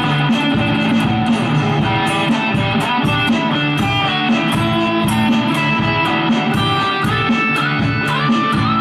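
Telecaster-style electric guitar with active humbucker pickups, played through a Mooer GE200 amp modeller: a steady run of quick picked notes, with one string bent upward about eight seconds in.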